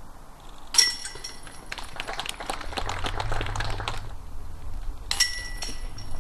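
Discs hitting a metal disc golf basket twice. Each hit is a sharp metallic clank with a ringing tone, the second about four and a half seconds after the first. A dense clatter of about two seconds lies between them.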